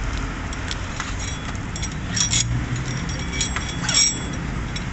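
Metal parts or hand tools clinking, with a few sharp ringing taps about two seconds in and a louder cluster near four seconds in, over a steady low hum.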